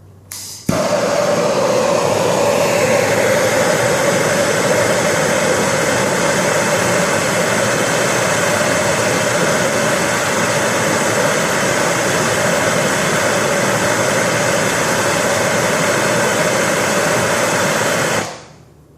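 Handheld gas torch flame burning steadily while it heats a copper pipe fitting that has no flux inside. The flame starts abruptly just under a second in and shuts off near the end.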